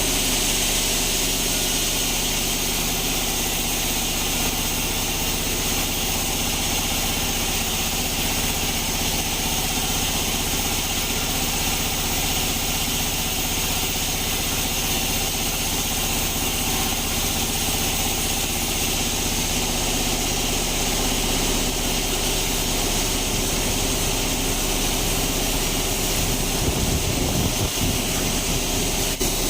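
Sawmill bandsaw running steadily, a low machine hum under a high hiss, with a brief low rumble near the end.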